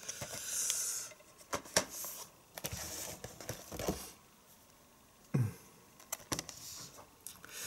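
Plastic DVD cases clicking and knocking together as they are handled, with short rustles of the cellophane wrapping.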